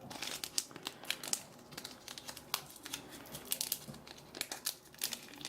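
Crinkling and tearing of a trading card pack's plastic wrapping as the cards stuck inside are worked loose by hand, in rapid, irregular crackles.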